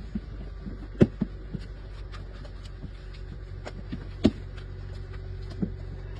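A few sharp knocks or taps, the loudest about a second in and again about four seconds in, with fainter ticks between, over a steady low hum.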